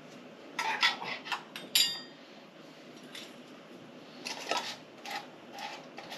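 Metal canning lids and screw bands clinking and tapping against glass mason jars as they are set on and screwed down. There are several short clinks, one of them ringing about two seconds in, then a second run of lighter taps near the end.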